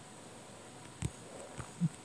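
A few soft, low knocks over a faint steady hiss: one about a second in, a smaller one, then the loudest near the end.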